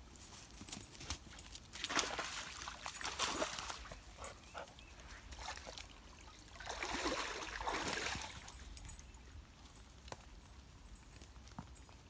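A dog splashing in a shallow stream, two bouts of splashing and sloshing about two seconds each, over the faint trickle of the water.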